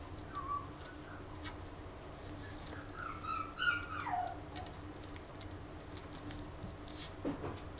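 Shiba Inu puppies whimpering: a faint squeak near the start, then a run of high whines about three seconds in, the last one falling in pitch. A few light clicks are scattered through it.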